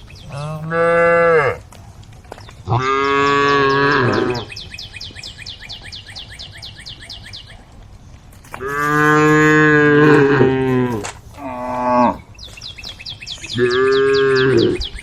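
Cows mooing: five long, loud moos, one after another, with short gaps between them.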